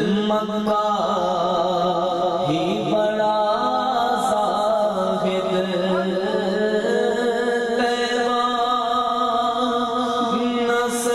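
A man singing a naat, an Urdu devotional song in praise of the Prophet, into a microphone, with long held notes that bend and waver in pitch.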